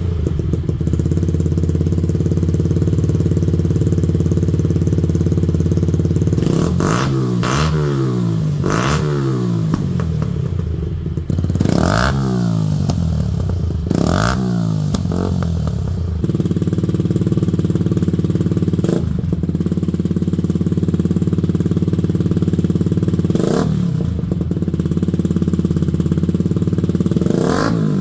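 Yamaha YZF-R125's single-cylinder four-stroke engine idling through an exhaust under test, blipped up and back down about six times.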